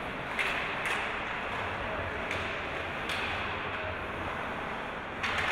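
Ice hockey play on a rink: a steady hiss of skates on the ice, broken by several sharp clacks of sticks and puck, the loudest near the end.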